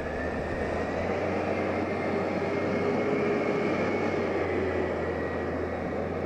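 Peterbilt 320 front-loader garbage truck's diesel engine running as it drives off, getting louder and then easing off, with a faint high whine over it.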